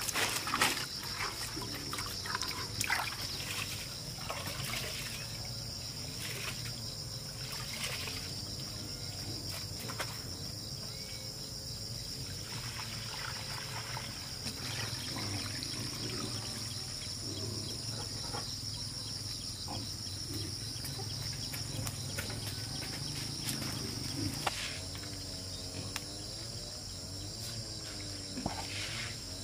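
Insects chirring in a steady high drone over faint outdoor background sounds, with scattered clicks and knocks in the first few seconds.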